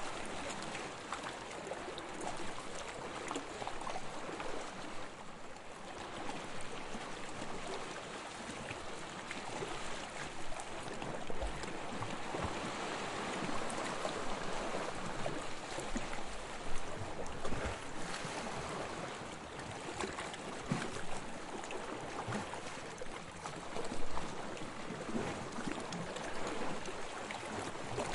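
Sea water lapping and sloshing close by, a steady wash full of small splashes and drips, with two sharper splashes in the second half.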